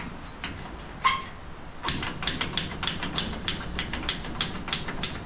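Wrought-iron gate being handled: a sharp metallic click with a brief ring about a second in, then a run of light clicks and rattles, about three or four a second.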